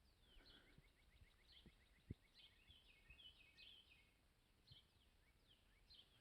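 Faint outdoor birdsong: several songbirds singing repeated chirps and short down-slurred notes, with a quick trill of short notes, over near silence. A soft tap sounds once about two seconds in.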